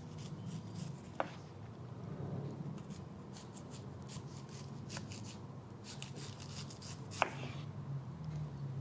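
Knife blade slicing through a firm, unripe green mango in quiet scraping strokes, with two sharp clicks, one about a second in and one near the end.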